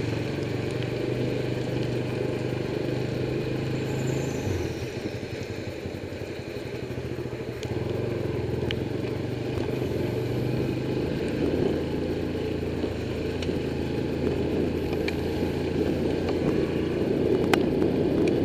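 Motorcycle engine running steadily as the bike is ridden along a wet road, under a steady rushing noise. The loudness dips briefly about four seconds in and then picks up again.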